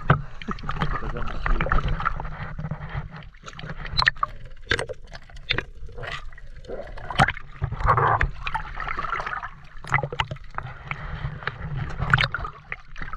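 Seawater sloshing and splashing against a camera bobbing at the surface, with gurgling and bubbling as it dips under and comes back up, and many short sharp splashes throughout.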